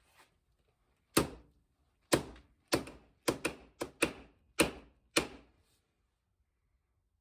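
A series of about nine sharp knocks, sometimes close together and sometimes about half a second apart, from hammer blows on a tool being worked.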